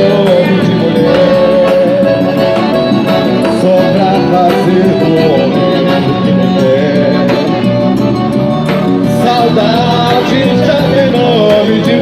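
Loud quadrilha junina music: a sung melody over instruments, playing without a break.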